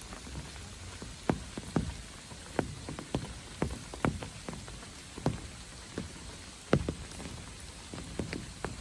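Rain: large drops falling in irregular single taps, one or two a second, over a faint steady hiss of lighter rain.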